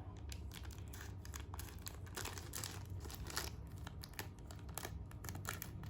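Plastic packaging crinkling and crackling irregularly as it is handled and opened, over a steady low hum.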